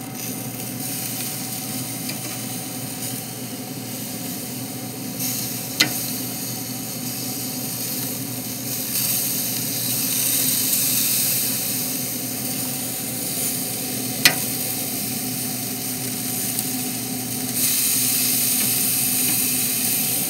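Steaks sizzling on a hot grill grate: a steady hiss that grows louder about halfway through and again near the end, with a steady low hum underneath and two sharp clicks several seconds apart.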